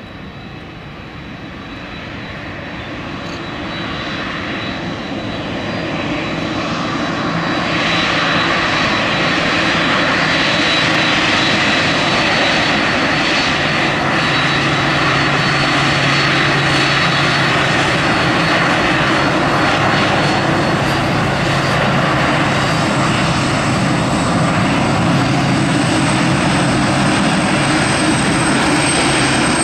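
Boeing 767-300ER jet's General Electric CF6 turbofans whining as it taxis close by. The sound grows louder over the first several seconds as it approaches, then holds a steady loud rush with a high whine.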